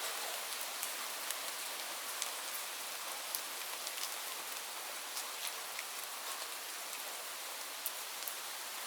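Steady rain falling, a continuous hiss with many separate drops ticking sharply on a hard surface.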